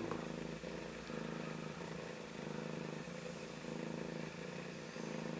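Domestic cat purring steadily and low, close up. She is in labour, purring between the births of her kittens with a newborn at her side.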